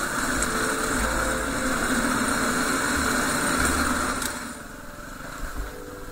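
Yamaha WR250R's single-cylinder four-stroke engine running under way, heard with riding noise on the bike's action camera. It gets clearly quieter a little over four seconds in, as if the bike eases off.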